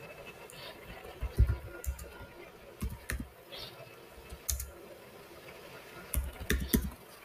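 Typing on a computer keyboard: irregular clusters of keystrokes, each a sharp click with a dull knock beneath it. Near the end comes a quicker run of several strokes.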